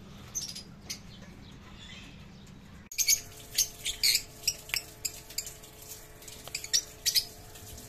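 Fischer's lovebird giving a quick series of sharp, high-pitched chirps, about a dozen over four seconds, starting about three seconds in after a faint start.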